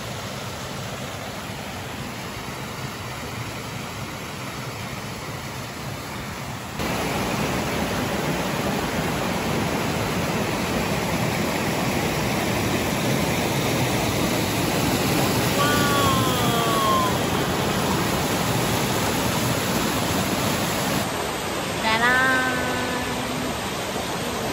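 Rushing water of a small waterfall and a fast creek pouring over rock ledges: a steady, even rush that gets louder about seven seconds in. A short voice is heard twice.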